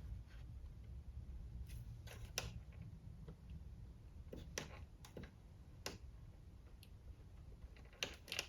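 Faint, scattered clicks, about seven in all, from tactile push-button switches on a dehumidifier control board being pressed during a continuity test, over a low steady hum.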